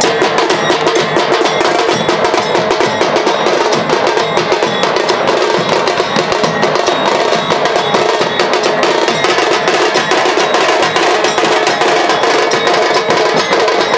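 Dhol tasha troupe drumming: a dense, unbroken stream of rapid tasha stick strokes over dhol beats.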